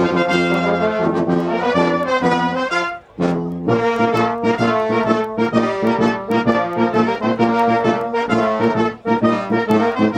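Brass band playing in full, with cornets and tubas. The music breaks off for a moment about three seconds in, then the band comes back in.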